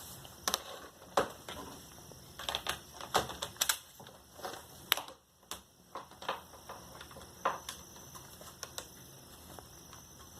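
Irregular light plastic clicks and taps from handling a Dell Inspiron laptop as its removable battery is slid back into place, some in quick clusters, the loudest about five seconds in.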